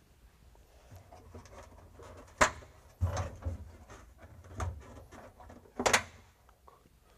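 Knocks and clunks from the body of a CrystalBlast 3624 sandblast cabinet as it is handled and fittings are pushed into place. The two sharpest knocks come about two and a half seconds in and near the end, with a few duller thuds between them.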